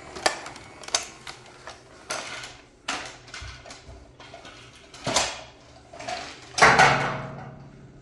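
Knocks and clatter of plastic toy cleaning equipment being handled and put down: a string of about eight irregular sharp knocks, the loudest about two-thirds in.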